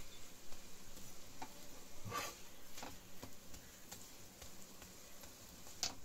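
Dal puri shallow-frying in oil on a flat griddle (tawa), the oil sizzling faintly, with a metal spatula scraping against the pan about two seconds in and again near the end, and a few lighter taps between.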